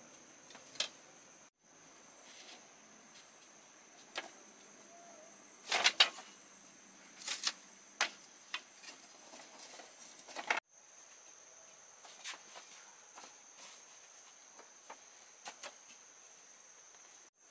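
Insects trilling steadily on one high tone, with scattered sharp knocks and taps over it, the loudest cluster about six seconds in.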